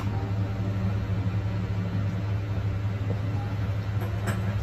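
Hot-air rework station (857DW+) blowing steadily onto a phone board, a constant low hum with airflow noise, while it heats the CPU to melt its solder for removal.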